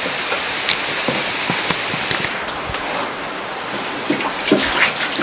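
Pot of water heating over an open fire: a steady hiss with scattered small pops and crackles.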